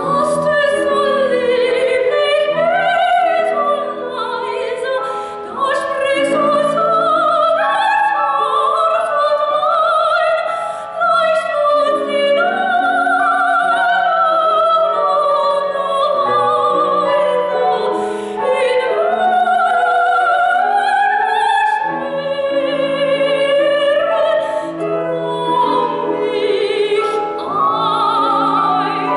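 A classically trained female soprano singing an art song with grand piano accompaniment, her held notes sung with vibrato.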